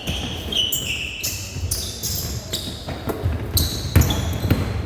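Basketball being played in a gym: sneakers squeak in short high chirps on the court floor, mixed with the ball bouncing and other knocks, the loudest about four seconds in, echoing in the hall.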